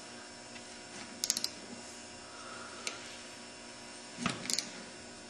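Ratcheting torque wrench clicking as a bolt is tightened toward a 47 torque setting: a quick burst of several ticks about a second in, a single click near the middle, and another short burst near the end.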